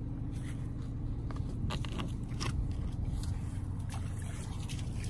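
A motor engine running steadily at a low hum, with a few light scrapes and clicks about two seconds in.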